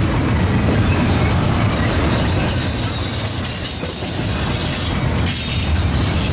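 Double-stack intermodal freight train's well cars rolling past, a steady rumble and clatter of steel wheels on the rail.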